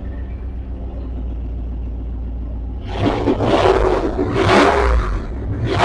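1999 Dodge Durango engine running with the muffler cut out of its exhaust: a steady low idle rumble, then from about three seconds in the engine is revved up and let back down twice, each rev much louder than the idle.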